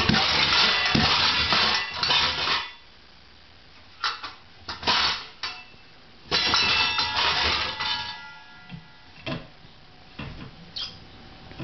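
Metal cookware clattering and clanging as a baby pulls stainless bowls, pots and lids around in a kitchen cabinet and knocks them together. A long stretch of clatter comes first, then shorter bursts and single clinks, with metal ringing on between them.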